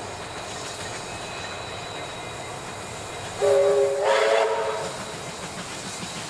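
A train running past with a steady rumble. About three and a half seconds in, a locomotive sounds a multi-note chime horn, starting abruptly, swelling again half a second later and dying away after about a second and a half.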